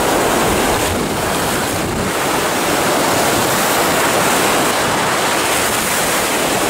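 Sea surf foaming and washing around the legs of someone wading through shallow water over a coral flat, a steady rushing noise with wind buffeting the microphone.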